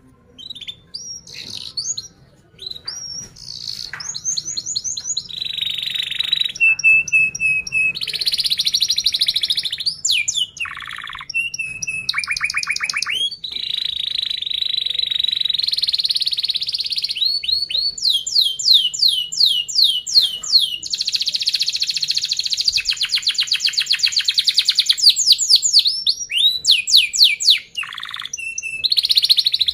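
Domestic canary singing a long, unbroken song: fast rolling trills and quick runs of repeated chirps, one phrase following the next with hardly a pause.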